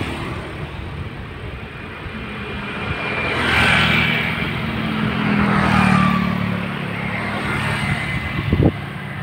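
Motorcycle engine passing close alongside, swelling to its loudest about four seconds in and fading by about seven seconds, over steady traffic noise.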